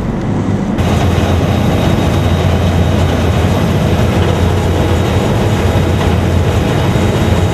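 Motorboat running at speed: a steady, loud low engine drone under the rush of churning water from the wake. It gets a little louder about a second in.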